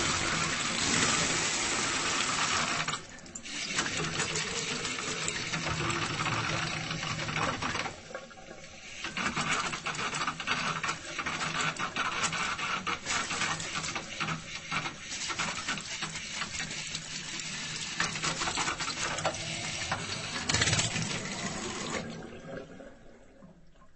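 Water faucet with poor water flow, running unevenly with many fine crackling spurts. The flow briefly drops off about three seconds in and again around eight seconds, then dies away near the end.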